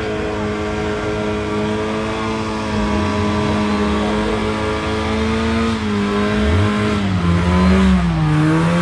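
Car engine held at steady high revs while the rear tyres spin in a smoky burnout. About six seconds in, the revs drop and begin to waver up and down.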